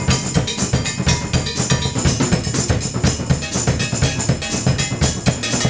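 Mardi Gras Indian percussion music: drums and tambourine playing a dense, steady beat.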